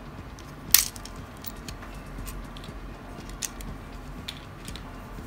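A sharp plastic snap as a clip-on cover is pulled off a Tamiya Mini 4WD AR chassis, about a second in, followed by a few faint clicks of small plastic parts being handled and set down.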